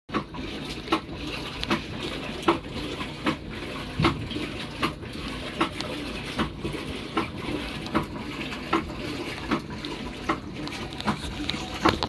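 Maytag Bravos XL top-loading washing machine running a load: a steady rush of water with a regular sloshing knock about every 0.8 seconds as the load is moved in the tub.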